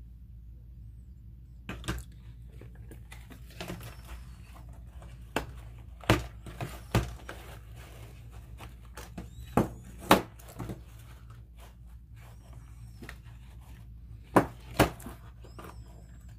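Red silicone mold being flexed and rubbed as cast Ultracal 30 plaster hearts are pushed out of it, with scattered sharp knocks as the hard hearts are set down on a countertop. The loudest is a pair of knocks near the end, over a steady low hum.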